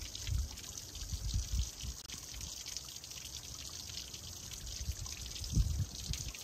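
Small stream trickling as a steady hiss of running water, with a few low thumps.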